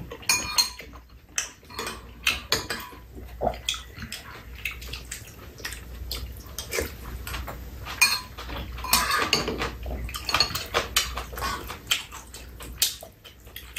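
Metal spoons and chopsticks clinking and scraping against ceramic bowls in many small irregular clicks, with mouth sounds of eating between them.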